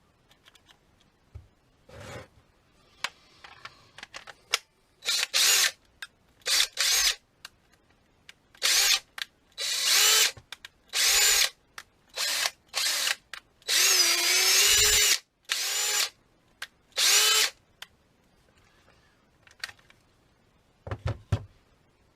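Impact driver run in about a dozen short trigger pulls, its motor whining up to speed each time and stopping between pulls, with one longer run of about a second near the end. The tool is running again after its won't-turn-on fault was repaired.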